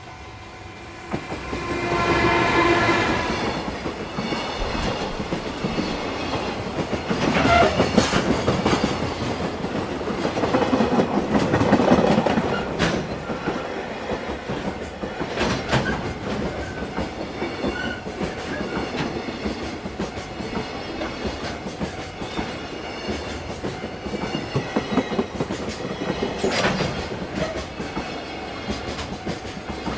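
A freight train sounds its horn briefly about a second in, then passes close by with a continuous rumble. The clatter of its wheels over the rail joints goes on, loudest about eight and twelve seconds in.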